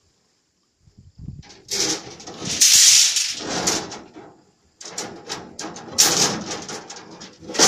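Long steel reinforcing bars being dragged off a trailer bed, scraping and clattering against the metal and each other in two long, loud bouts after a brief silence.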